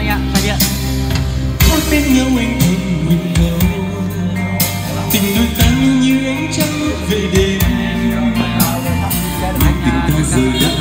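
Karaoke backing music played loud through a portable trolley karaoke speaker, with a man singing along into a wireless microphone over it.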